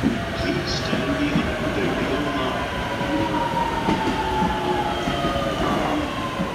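Electric commuter trains running through a station: the wheels rumble on the rails, and a motor whine falls slowly in pitch as a train slows.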